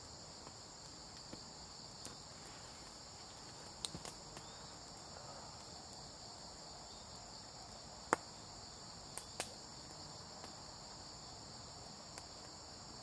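A steady, high-pitched chorus of insects in the surrounding forest, continuous throughout. A few sharp clicks sound over it, the loudest about 8 seconds in and another about 9.5 seconds in.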